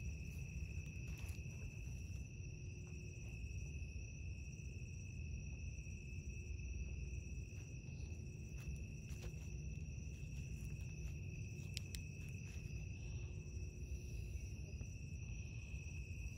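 Crickets trilling in one steady, unbroken high note, over a low rumble.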